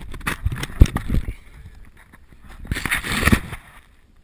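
Body and clothing scraping and knocking against cave rock while sliding down a passage: a run of knocks and rubbing in the first second or so, then a louder rustling scrape about three seconds in.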